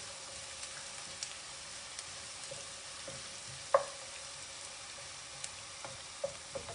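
Sliced onions frying in hot oil and ghee with whole spices: a steady sizzle with scattered small pops and one sharper knock about four seconds in.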